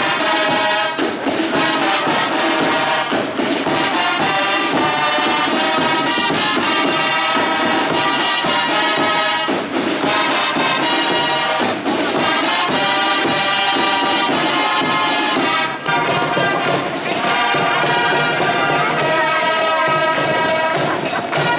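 Brass and drum band playing a tune together, the brass horns carrying it over the drums.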